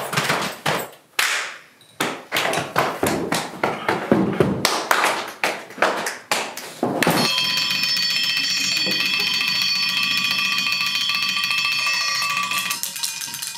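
A run of irregular knocks and taps, then several metal triangles ringing together in a steady, even shimmer of many high tones that lasts about six seconds and thins out near the end.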